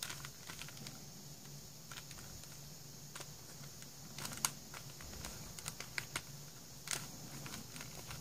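Plastic pieces of a four-layer Super Square star mix twisty puzzle clicking irregularly as its layers are turned by hand, with a couple of louder clicks about halfway through and near the end.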